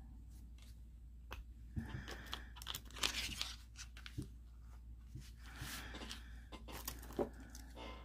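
Faint scraping and clicking of a scraper card drawn across a metal nail-stamping plate, spreading stamping polish over the design.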